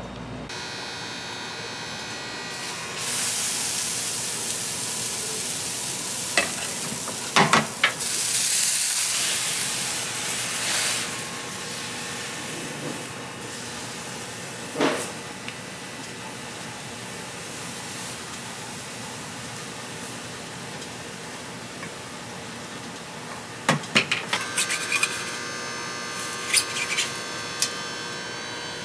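Crepe batter sizzling and hissing on a hot crepe griddle as it is spread with a wooden spreader. The sizzle is loudest a few seconds in, then settles to a softer steady hiss, with a few sharp knocks. Near the end comes a run of clicks and taps as a metal spatula works under the crepe to lift it.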